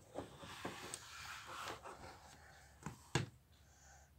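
Handling noise of a plastic Playmobil figure being moved by hand: soft rustling and small clicks, then two sharp knocks close together about three seconds in as the figure is set down on the tabletop.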